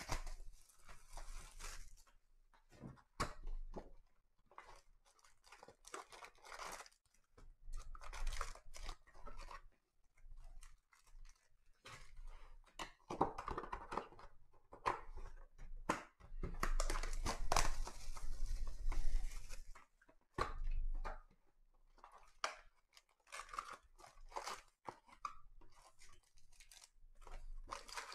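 Hands tearing and crinkling open a Donruss Optic football card hobby box: its wrapping and cardboard rustle in irregular bursts, the longest and loudest about two-thirds of the way through. Near the end the foil card packs inside rustle as they are handled.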